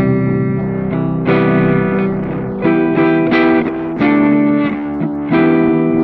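Distorted plucked-sounding chords played through the Newfangled Audio Recirculate delay plugin. A new chord is struck about every second and rings on into the next.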